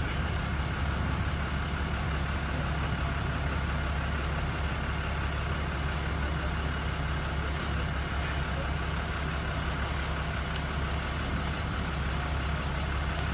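A truck engine idling steadily, a constant low drone.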